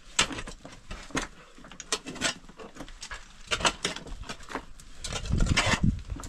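Digging tool chopping and scraping into packed dirt and loose stone in a narrow rock crevice: a series of irregular knocks and scrapes, heaviest about five seconds in.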